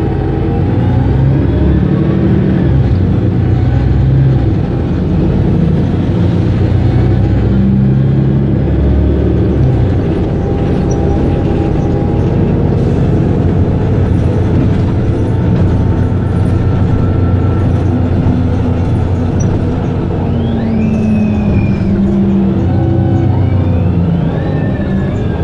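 Mercedes-Benz O530 Citaro city bus idling at a standstill: its diesel engine runs steadily, with small shifts in pitch. A few short whistling glides come near the end.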